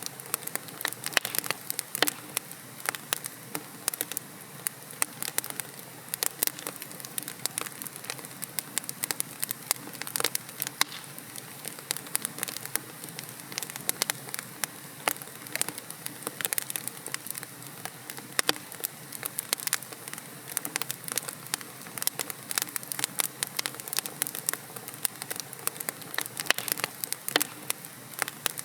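Wood logs burning in a fireplace, crackling and popping in a dense irregular patter of sharp snaps over a steady soft hiss.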